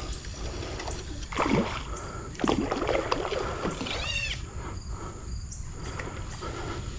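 Hooked palomino trout splashing at the surface of a shallow creek as it is played on a fly rod, with two louder splashes about one and a half and two and a half seconds in, over a steady low rumble.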